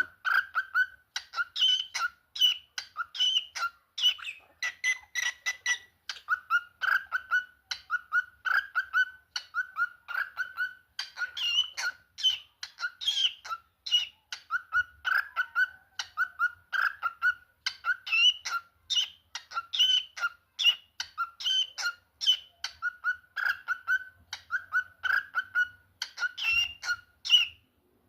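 Cockatiel calling in a steady series of short, repeated chirps, about two a second, stopping shortly before the end.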